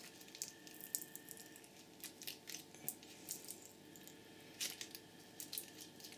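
Faint crinkling and scattered small clicks of Kapton insulating tape being peeled off the windings of a small switch-mode power-supply transformer by hand.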